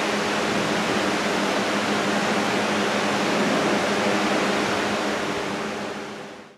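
Electric fan blowing a steady rush of air, with a motor hum under it, fading out near the end.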